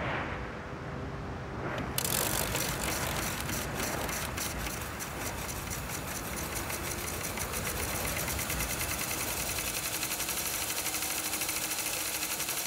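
Microfilm reader winding film at speed: a rapid, even mechanical clatter and whir that starts abruptly about two seconds in, after a short stretch of outdoor wind noise.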